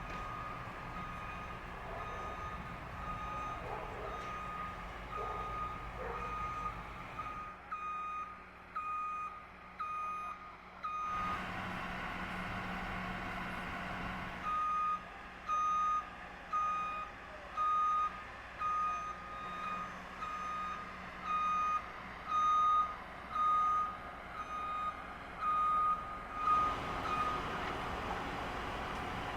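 Reversing alarm of a construction vehicle beeping about once a second, pausing for a few seconds near the middle, over the low steady hum of an engine.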